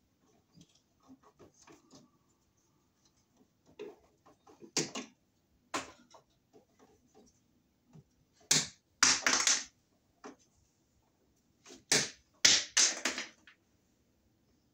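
Wire strippers snipping and pulling insulation off electrical cable at a switch box: scattered small clicks, with two louder bursts of snipping and scraping, one a little past halfway and one near the end.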